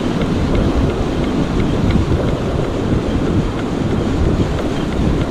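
Heavy wind buffeting the microphone over the wash of breaking surf: a steady, loud, low rumble.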